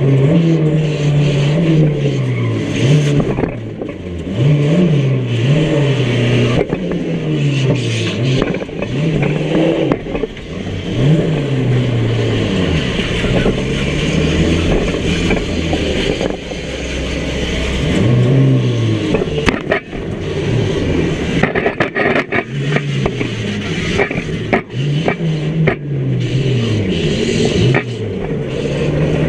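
Micro banger car's engine heard from inside the stripped cabin, revving up and falling back again and again as it is driven hard. Sharp knocks and scraping of battered bodywork come through, thickest about twenty seconds in.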